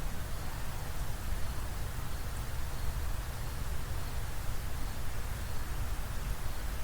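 Steady hiss with a low rumble underneath: the background noise of an amplified outdoor field recording, with no distinct call or crash.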